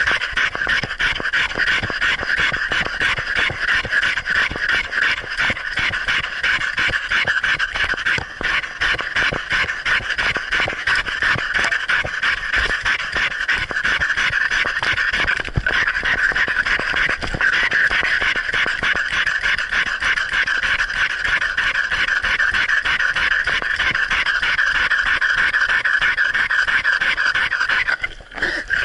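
Dog panting fast and hard right at the microphone, which is strapped to its muzzle, as it runs; the panting breaks off for a moment near the end.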